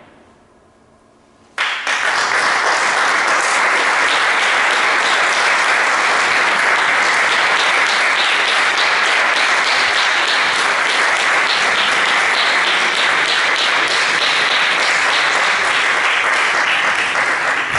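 Audience applause starts suddenly about a second and a half in, after a last sound has faded, and keeps going steadily as many hands clap together.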